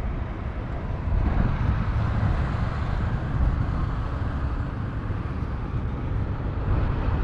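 Wind rumbling and buffeting on the microphone: a steady low, uneven rumble that swells about a second in and again near the end.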